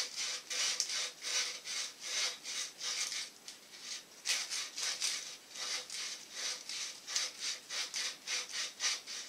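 120-grit sand cloth rubbed back and forth around the cut end of a copper tube, about three strokes a second, with a short pause a little over a third of the way through. It is scouring the oxide off the copper to prepare the joint for silver brazing.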